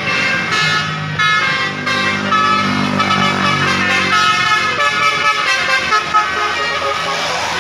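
Basuri multi-tone bus air horn (telolet) playing a stepping melody of horn notes, with a rising siren-like sweep near the end.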